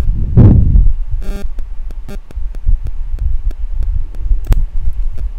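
Steady low hum and rumble on the microphone, with light clicks of a computer mouse scattered through it and one sharper click near the end.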